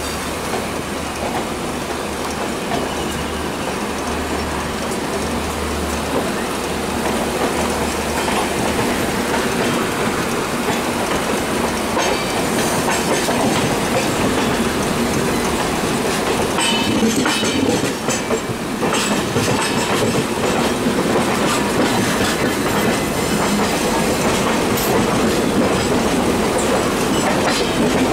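Two passenger trains running side by side on parallel tracks, an EMU local and the Steel Express's coaches: steady wheel rumble and clickety-clack over rail joints and points, heard close up from an open coach doorway. Brief high-pitched wheel squeals come through about halfway.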